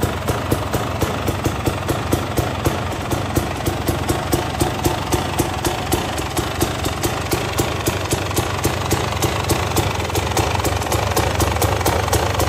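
Husqvarna 300 TPI's fuel-injected two-stroke single-cylinder engine idling, with a regular pulsing beat of about three pulses a second.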